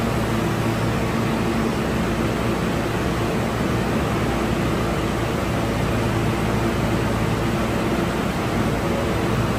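Steady, loud rushing noise with a low hum in an underground subway station, unchanging and without clicks or knocks.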